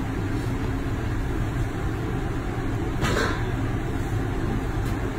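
Salted anchovies (ginamos) frying in oil with garlic and tomato in a metal pan: a steady sizzle over a low hum, with a short louder burst about three seconds in.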